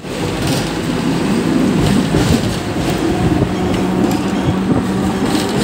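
Hong Kong double-decker electric tram running along its street track, heard from inside the upper deck: a steady low rumble and motor hum with scattered clicks and rattles from the wheels and body.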